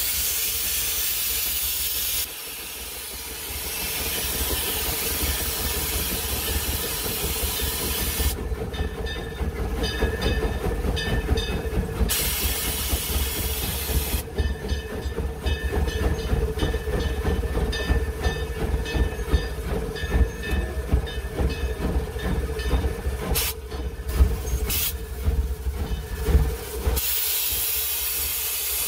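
Steam locomotive heard from inside its cab: loud steam hissing in several spells of a few seconds each, between them the rumble and rattling clatter of the engine rolling along over a steady hum.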